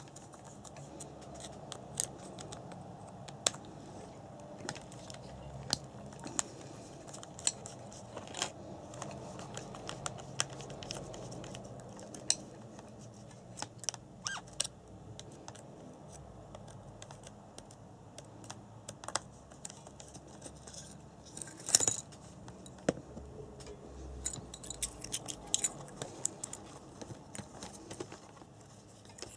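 Scattered small clicks, taps and rattles of a tool and small metal and plastic parts as the motor is unscrewed and pulled out of an RC buggy's plastic gearbox. There is a louder clatter about three-quarters of the way through.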